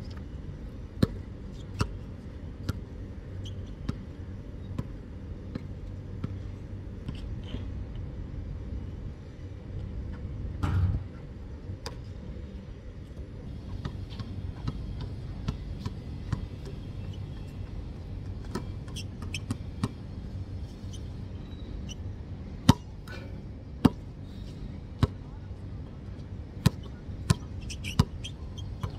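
Basketball bouncing on a hard outdoor court: sharp, irregular thuds over a steady low background rumble, the loudest two bounces coming a little past the middle.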